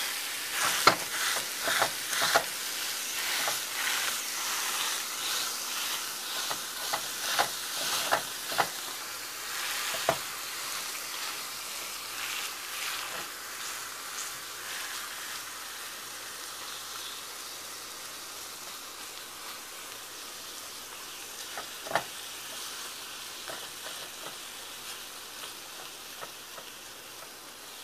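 Raw meatloaf mixture sizzling in a preheated cast iron frying pan while hands press and pat it flat, with short wet slaps and squelches through the first third. The sizzle slowly gets quieter, and there is one sharp tap about two-thirds of the way through.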